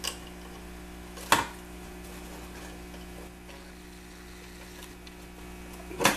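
Plastic clicks and knocks of a Numark PT01 Scratch turntable's housing as its top is handled and fitted back onto the base over the wiring: a sharp click about a second in and another near the end, over a steady low hum.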